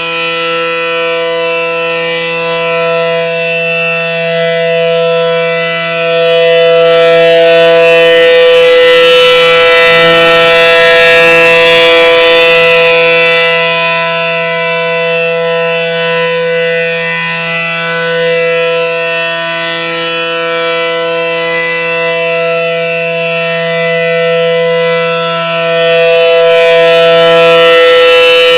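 ACA Allertor 125 electronic outdoor warning siren sounding a steady tone that holds one pitch without rising or falling. It swells louder for several seconds about six seconds in and again near the end as its rotating horn turns toward the listener.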